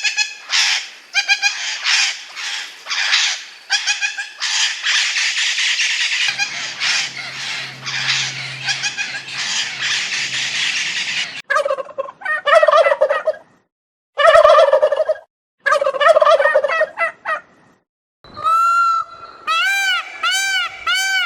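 A flock of domestic turkeys gobbling over one another, followed by separate louder calls. Near the end comes a run of repeated honks from geese, about two a second.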